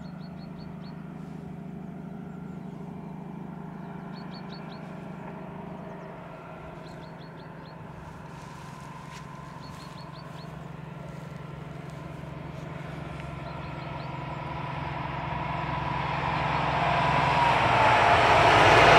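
DB class 218 diesel-hydraulic locomotive hauling a car-carrier train, its diesel engine droning steadily as it approaches. It grows steadily louder over the last few seconds as the locomotive passes and the wagons start rolling by on the rails.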